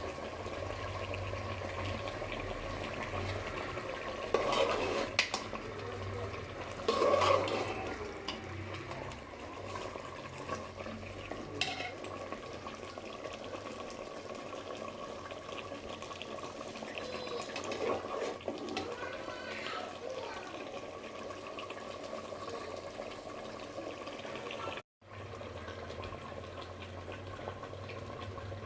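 A utensil stirring and clinking in a cooking pot, with a few sharper clinks now and then, over a steady low hum.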